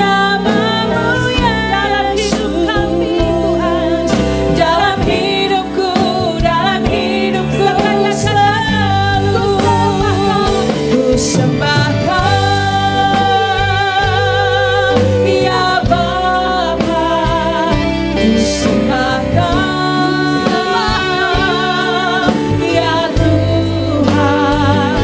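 Women singing an Indonesian worship song with a live band of keyboard, electric guitar and drums, their held notes wavering with vibrato.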